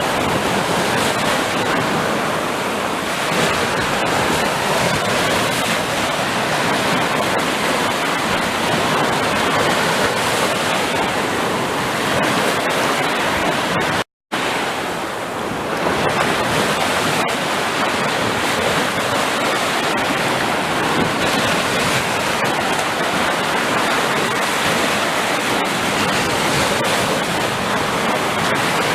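Sea surf rushing and washing steadily on a shore. The sound cuts out completely for a split second about halfway through.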